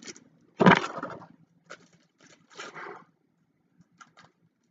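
A foil Yu-Gi-Oh booster pack being torn open and handled. There is one loud rip about half a second in, then several shorter crinkles and scrapes of the wrapper and cards.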